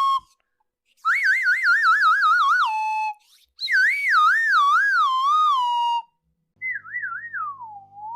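Comedic whistle-like sound effect: a warbling tone that wobbles and falls in pitch, then settles on a held lower note, played twice. A quieter third tone wobbles, dips and swoops back up near the end.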